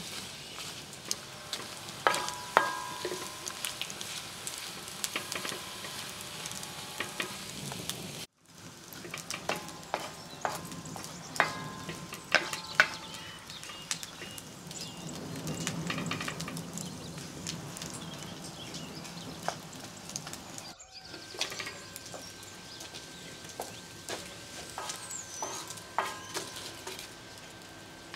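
Sliced onions sizzling as they fry in a wide metal pan over a wood fire, stirred with a wooden spoon that knocks and scrapes against the pan many times. The sound drops out briefly twice.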